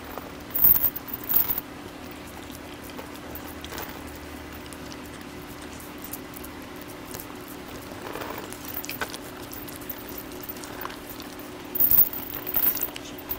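Jindo dog snapping up and chewing pieces of boiled pork taken from a hand: wet, clicky bites and chewing in two louder bursts, about a second in and again near the end, with quieter chewing between and a steady low hum underneath.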